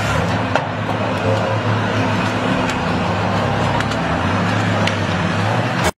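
Heavy machinery's diesel engine running steadily under load, with a few short sharp cracks. The low engine note shifts about four seconds in.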